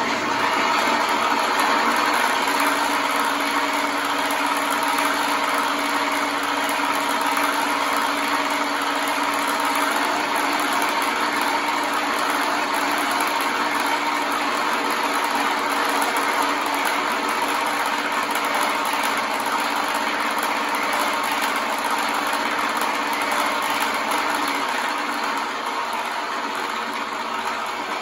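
GT Power engine sound box in an electric RC Corsair model, playing a simulated aircraft piston engine at a steady idle through its small speaker. The level eases slightly near the end.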